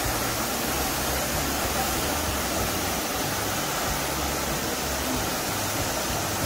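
Steady rushing of a tall waterfall pouring into a plunge pool.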